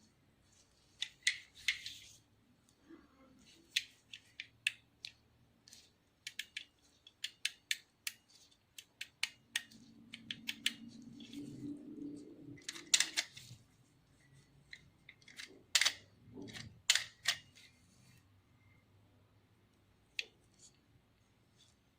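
Mechanical clicks and snaps of an antique camera being handled and worked, coming irregularly and sometimes several a second, with a few louder snaps in the second half.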